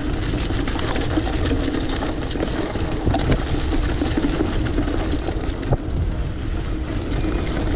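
Mountain bike rolling fast on a dirt trail: wind rumbling over the camera microphone and tyre noise, with scattered small rattles and clicks from the bike.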